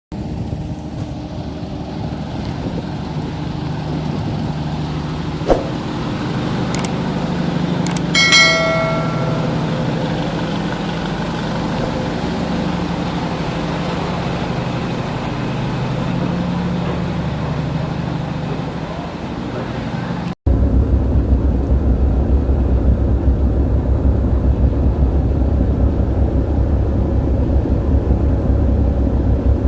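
Steady low engine hum, with a single ringing, bell-like strike about eight seconds in. About two-thirds of the way through it cuts abruptly to a louder, deeper rumble.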